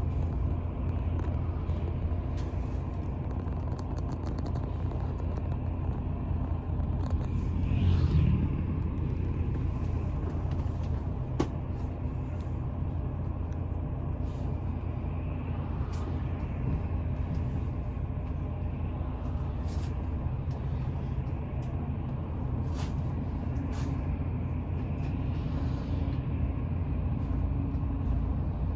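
Steady low outdoor rumble, with a brief swell about eight seconds in and a few faint short clicks.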